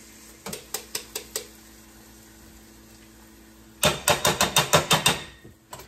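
A handheld metal grater tapped against the rim of a stainless steel pot to knock off grated ginger: a few light taps in the first second or so, then a quick, louder run of about ten sharp knocks near the end.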